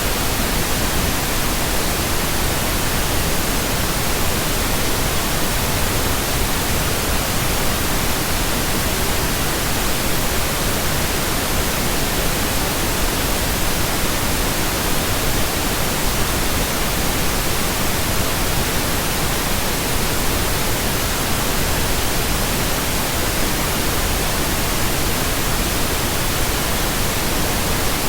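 Steady synthetic pink noise: an even, unbroken hiss at a constant level.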